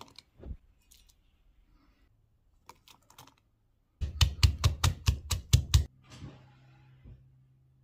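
Stone pestle pounding garlic and shallots in a stone mortar: about ten quick, hard strikes at roughly five a second, starting about halfway through and stopping about two seconds later. A few light clicks come before it.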